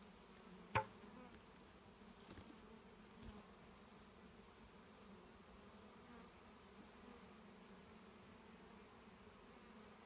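Honey bees buzzing faintly and steadily as they fly around an open hive. One sharp click sounds about a second in.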